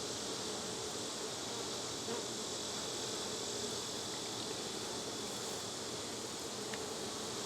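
Honeybees buzzing steadily around an open hive as its frames are inspected.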